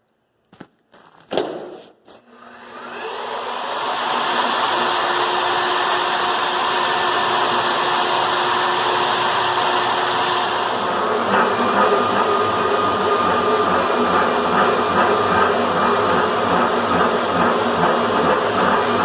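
Climax BB5000 portable line-boring machine: a few clicks, then its drive motor spins up over about two seconds and runs steadily. About eleven seconds in the sound turns to a rhythmic chatter, as when the facing cutter is cutting back the steel face of the bucket ear.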